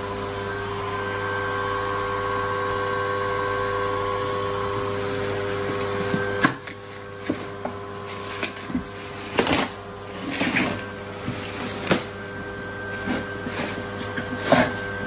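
A steady electric motor hum that cuts off abruptly with a click about six and a half seconds in, followed by scattered clicks and knocks.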